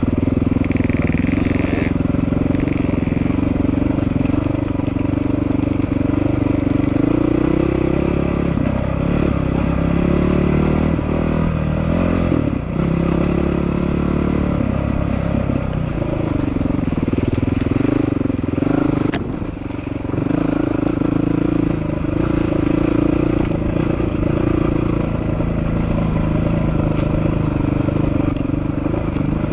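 Red Honda dirt bike engine running as it is ridden along a dirt trail, its pitch rising and falling with the throttle. It goes lower and uneven for several seconds in the middle and dips briefly about two-thirds through before picking back up.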